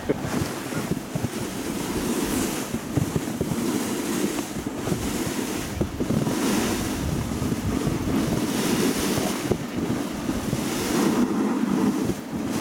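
Wind buffeting the microphone over the steady rushing hiss of a dog sled running over snow.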